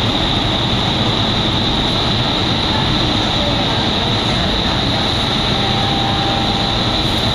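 Indoor skydiving vertical wind tunnel running at flying speed: a loud, steady rush of air from its fans, with a high steady tone held over it.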